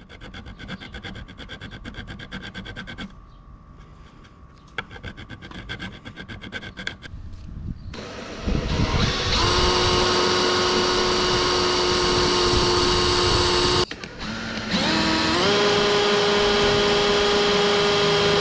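A hand file rasping in quick strokes on the fiberglass deck around a broken screw, in two bursts. Then a DeWalt 20V cordless drill runs twice, each time speeding up to a steady whine, drilling out a snapped non-stainless screw from the stern-light mount.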